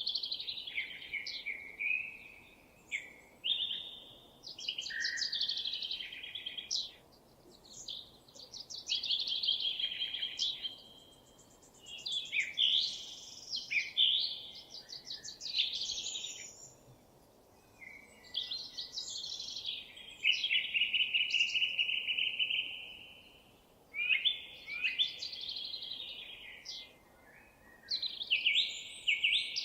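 A songbird singing in quick, varied phrases a few seconds apart, with short pauses between them. About two-thirds of the way through comes one long, even trill.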